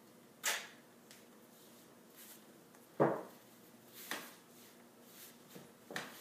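Athletic tape being handled while taping a foot's arch: four short ripping and rustling sounds as the tape is pulled, torn and pressed onto the sole, the loudest about three seconds in.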